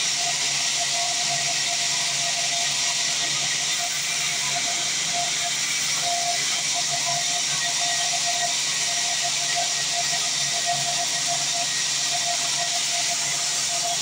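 Bandsaw sawmill running, its band blade and drive giving a steady, loud hiss over a low hum.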